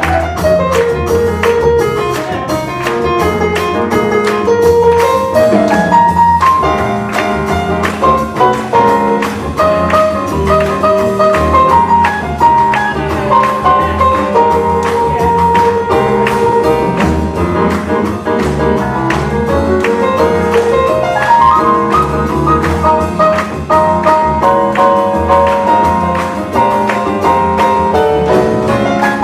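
Live jazz band playing: a saxophone carries the melody in a solo with rising runs, over piano, upright bass and a drum kit with busy cymbals.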